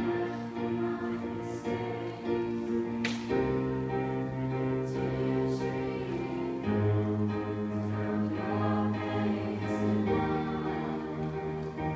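A small youth choir singing in harmony, accompanied by a digital piano and a cello. The held chords change about every three and a half seconds.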